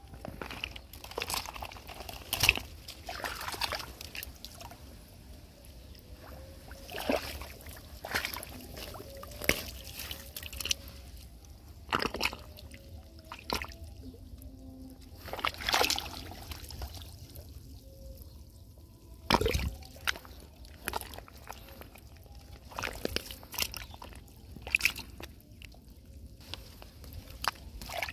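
Hands sloshing and splashing in shallow muddy water, in irregular strokes, some louder than others.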